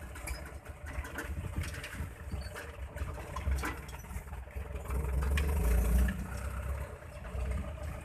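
Boom truck engine running, heard from inside the cab as the truck rolls slowly into a flooded stretch of road; the engine swells louder about five to six seconds in. Scattered clicks and rattles sound over the low rumble.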